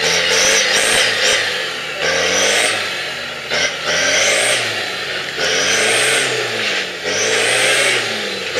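An off-road 4x4's engine revving hard again and again, its pitch rising and falling about once a second, as the vehicle tries to climb out of a deep mud hole.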